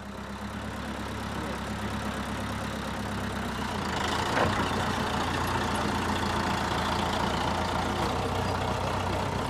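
Crawler tractor's engine running steadily, growing louder about four seconds in, with a single clank soon after.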